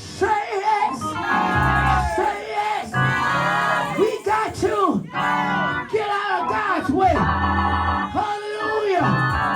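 Church organ playing held chords over a bass line, with a voice rising and falling in long drawn-out tones over it.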